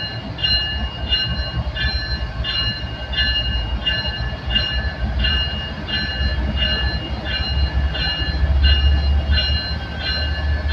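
Railroad crossing bell ringing steadily about twice a second, over the low rumble of a passing train that grows louder near the end.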